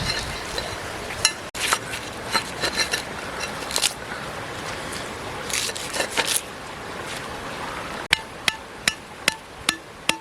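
Kitchen utensils clinking and scraping in an uneven patter, then from about eight seconds in a steady run of sharp knocks, roughly two and a half a second, each with a short ring.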